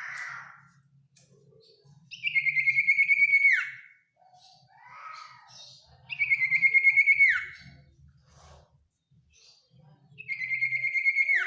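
Common iora singing: three long trilled whistles about four seconds apart, each held on one pitch and ending in a quick downward slur, with soft chirps between them. This is the long trilling song that bird keepers call 'ngetir', used to call a rival bird.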